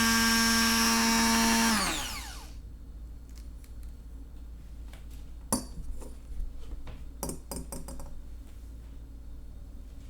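Braun Multiquick Vario 5 hand blender motor running with a steady whine, then switched off about two seconds in, its pitch falling as it spins down. After that, a few light clicks and knocks.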